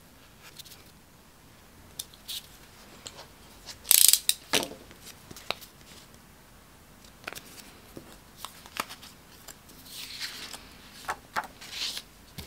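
Scissors snipping card paper in short, irregular cuts, the loudest clicks about four seconds in, then paper rustling as the cut pieces are handled and slid on a cutting mat near the end.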